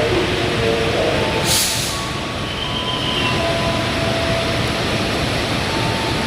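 Heavy rain falling steadily at a railway station, mixed with the rumble of a train, and a short sharp hiss about a second and a half in.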